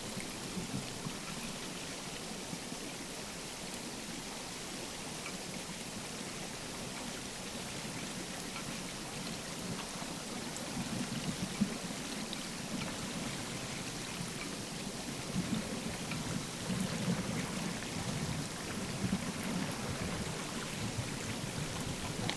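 River water pouring over a weir, heard underwater through a hydrophone: a steady rushing noise like white noise, with scattered small clicks and a low churning that swells in the second half.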